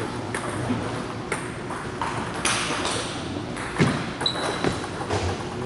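Celluloid-type table tennis ball clicking sharply off paddles and the table in a serve and rally, one hit every second or so. A brief high squeak comes about four seconds in.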